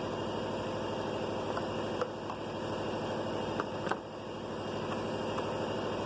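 A steady mechanical drone of a running engine, with a few light clicks and taps about two seconds in and again near four seconds, as the fuel hose is worked loose.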